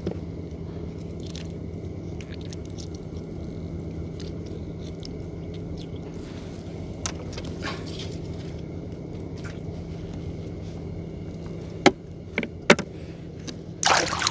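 Small boat engine running steadily with a low, even hum. Two or three sharp knocks come about twelve seconds in, and a short scraping rustle near the end.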